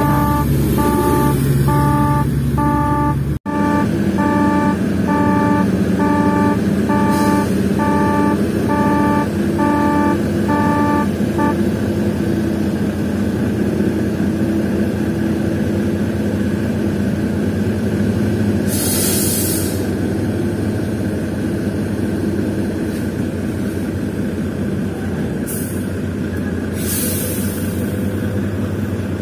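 A heavy truck's diesel engine running steadily, with a horn or alarm beeping in an even on-off rhythm through the first eleven seconds or so. A few short bursts of air hiss come later.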